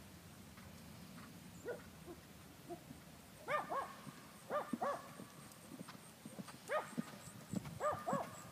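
Faint hoofbeats of a horse cantering on a sand arena. From about three and a half seconds in they are joined by short, high, rise-and-fall yelps, mostly in pairs, which are the loudest sounds.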